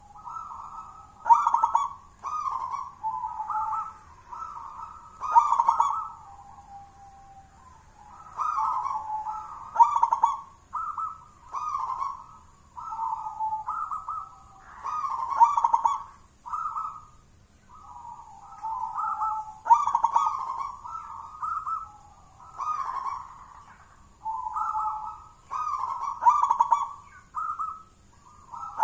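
Zebra dove (perkutut) cooing its song: phrases of short rolling coos that build to a louder note every four to five seconds.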